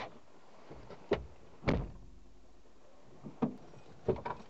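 About five separate thuds and knocks inside a car as backpacks are loaded and a car door is shut, the loudest about one and a half seconds in.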